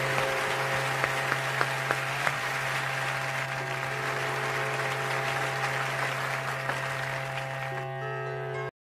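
A large audience applauding over music that holds a long, steady low chord; the clapping slowly thins, and both cut off abruptly near the end.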